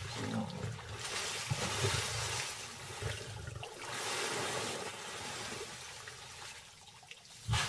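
Water splashing and churning as lions charge through a shallow river, in two surges.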